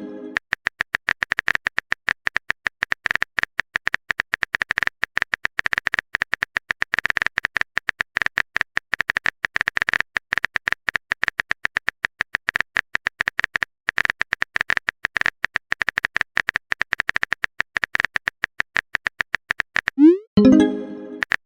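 Rapid, continuous clicking of a phone-typing sound effect. Near the end comes a short rising message chime.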